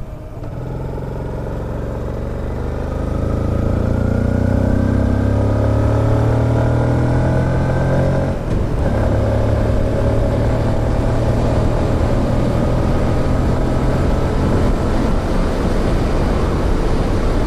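Yamaha LC135's single-cylinder four-stroke engine accelerating hard under load, its pitch climbing. About 8 s in it dips briefly and drops in pitch as the rider shifts up, then climbs again more slowly. Wind on the helmet-mounted microphone grows louder with speed.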